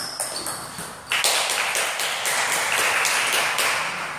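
Table tennis ball clicking off paddles and table in a rally. About a second in, a loud, even rush of noise rises over it and lasts about three seconds.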